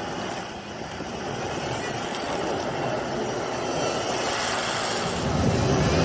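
Nissan Pathfinder's 3.3-litre V6 engine pulling hard as its tyres churn through deep snow, a steady drone that grows louder from about five seconds in as the SUV comes closer.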